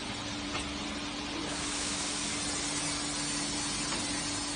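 Industrial ultrasonic washing and drying line running: a steady hiss over a steady machine hum, the hiss growing brighter about one and a half seconds in.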